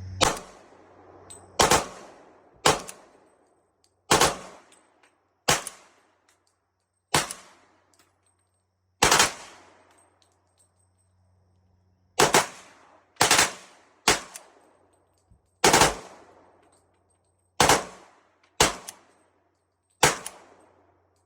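Glock 23 .40 S&W pistol fired fourteen single shots at an uneven pace, about one to three seconds apart, emptying a magazine. The pistol cycles through the whole magazine without jamming but is not running right, which the shooter puts down to the added non-OEM magazine.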